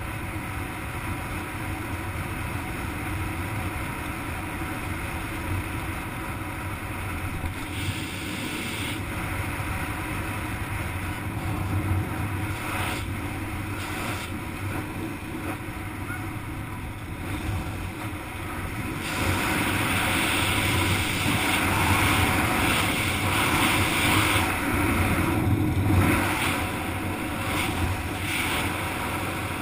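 Wind rushing over a helmet camera's microphone during parachute canopy flight, a steady noisy buffeting that grows louder about two-thirds of the way through.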